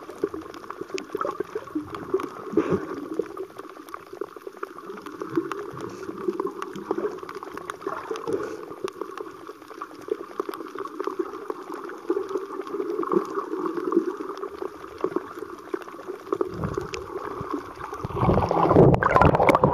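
Underwater sound through a waterproof camera: water gurgling and swishing, with many fine crackling clicks. It grows louder and deeper near the end, a rush of water moving past the camera.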